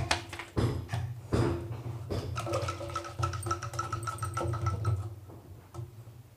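Wooden hand churner spun back and forth between the palms in a steel pot of curd and water, sloshing the liquid and knocking against the pot. A pulsing ring joins in for a couple of seconds in the middle, and the churning dies down near the end.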